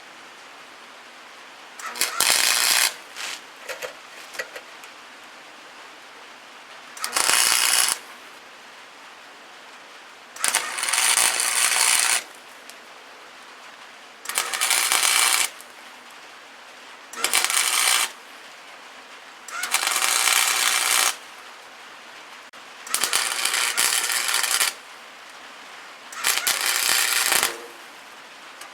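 Welder laying tack welds on sheet metal: eight short bursts of crackling arc, each a second or two long, with pauses between.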